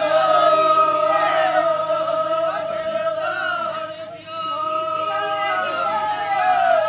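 A group of people singing together in long held notes, several voices at once, with a brief drop about four seconds in.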